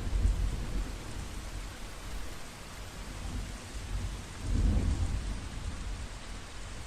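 Steady rain falling, with low rolls of thunder near the start and again about four and a half seconds in.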